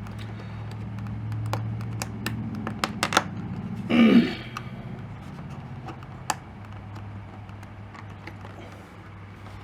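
Small plastic clicks and taps from handling a welding helmet's auto-darkening lens unit while getting at its battery, with a cluster of clicks around two to three seconds in. About four seconds in there is one short, louder sound that slides down in pitch. A steady low hum runs underneath.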